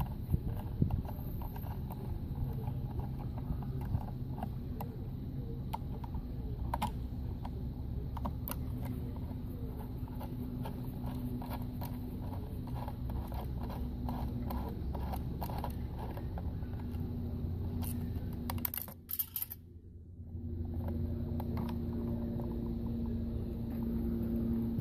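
Steady low machinery hum with a faint steady tone, overlaid by scattered light clicks and scrapes of handling; the sound briefly drops away about nineteen seconds in, then the hum returns.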